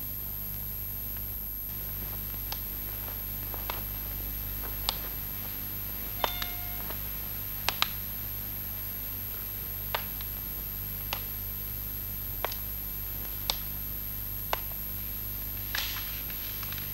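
Sparse, sharp clicks and ticks, roughly one a second, over a steady low hum and hiss.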